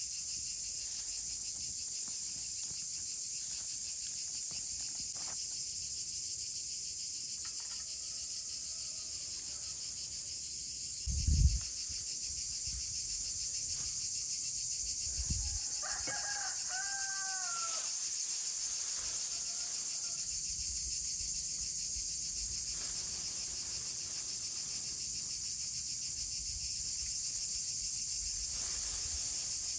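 Steady chorus of crickets, with a rooster crowing, faintly about 8 s in and more clearly around 17 s. A single low thump about 11 s in is the loudest sound.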